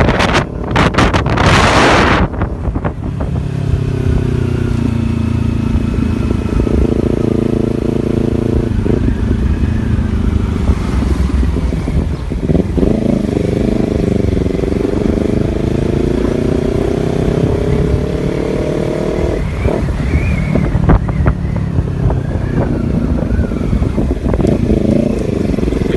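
Motor vehicle engine running on the move, its pitch slowly rising and falling as the speed changes, with a brief rush of wind-like noise about a second in.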